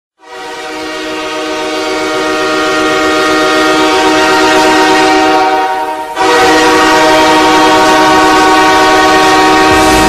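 LA Galaxy goal horn: a long horn blast sounding a chord of several steady tones. It swells up from the start, dips briefly about six seconds in, then sounds again at full strength.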